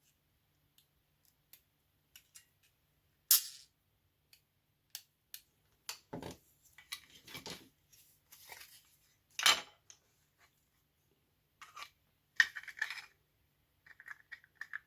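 Small plastic and metal parts of a disassembled electric breast pump being handled and set down: scattered sharp clicks and knocks, the loudest about 3, 6, 9½ and 12½ seconds in.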